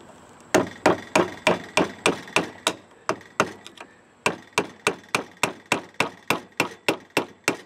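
Hammer tapping on a 1970 Honda CB450 front fork, about three sharp strikes a second with a short pause near the middle, to loosen the oil seal held in by a snap ring.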